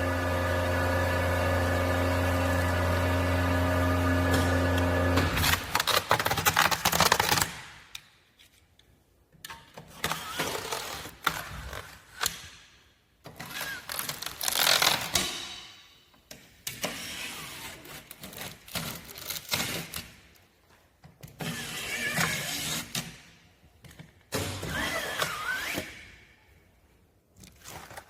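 Drawer-type skin packaging machine running with a steady hum, which stops about five seconds in after a short loud noisy stretch. Irregular bursts of handling and rustling noise follow, with quiet gaps between them.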